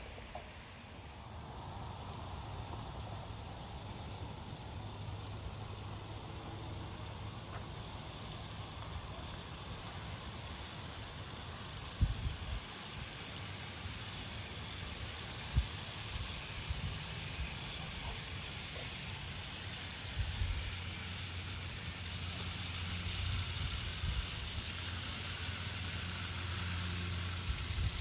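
JAKKS Pacific PowerTrains battery toy trains running on plastic track: a steady whir of small electric motors and rolling wheels, with a sharp knock about twelve seconds in and another a few seconds later.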